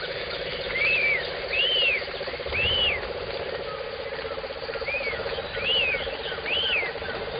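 A bird calling: two runs of three short, clear calls, each rising then falling in pitch, about a second apart, over a steady low drone.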